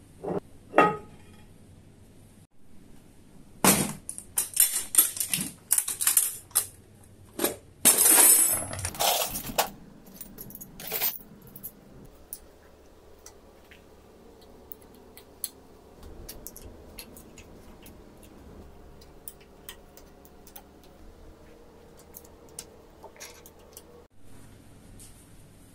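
Metal hand tools (pliers, screwdrivers, wrenches) clattering and clinking against each other and a metal toolbox as they are rummaged through. The loudest run of clashes comes a few seconds in, followed by lighter, scattered metal clicks.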